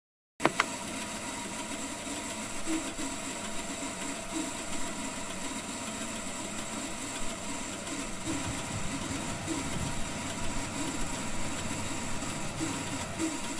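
Simulated metal-cutting band saw switched on with a click about half a second in, then its motor running with a steady hum.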